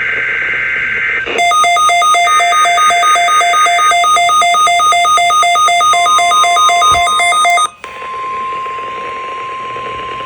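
Emergency Alert System SAME header data burst, a harsh two-tone warble, ending about a second in. Then an electronic weather-alert alarm beeps rapidly, about five beeps a second, for about six seconds. It gives way to a steady single-pitch weather-radio alert tone over static hiss, signalling a tornado drill test alert.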